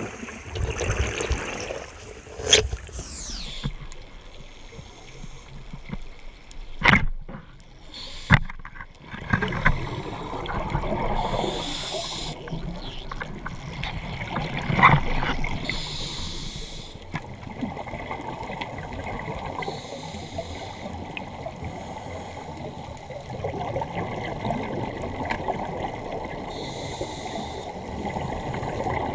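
Scuba regulator breathing heard underwater through a camera housing: hissing breaths every three to four seconds and rumbling, gurgling exhaust bubbles, with two sharp knocks about seven and eight seconds in.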